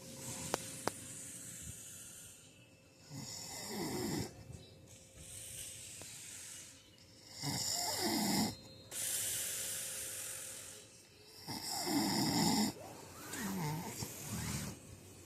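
A sleeper snoring: rough snores come every few seconds, with breathy hissing breaths between them.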